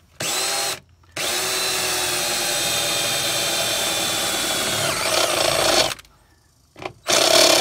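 Cordless drill with a step drill bit boring a starter hole through a vehicle's sheet-metal door sill: a short burst of the motor's whine, then a long steady run of about five seconds whose pitch dips as the bit cuts, and another burst near the end.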